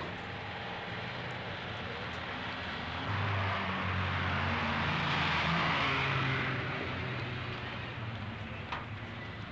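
A vehicle passing: a rush of engine and road noise that swells about three seconds in, is loudest around the middle, and fades away again.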